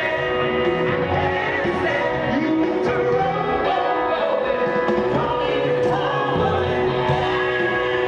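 Live rock music with singing from a festival stage's PA.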